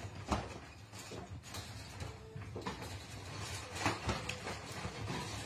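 Faint, irregular knocks and rattles of a wire pet crate as a cat climbs and tumbles inside it, the sharpest knocks just after the start and just before four seconds in, over a low steady room hum.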